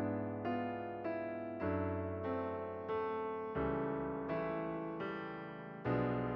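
Background piano music: a steady run of notes, each struck and then fading.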